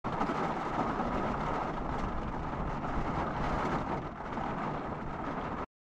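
Steady rain falling: a dense, even hiss of many small drop impacts.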